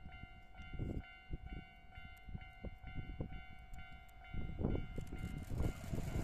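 Kintetsu 50000 series Shimakaze electric express train approaching along the track, its noise building as it draws close near the end, with clicks as it nears. A steady high-pitched whine runs underneath, and wind gusts buffet the microphone.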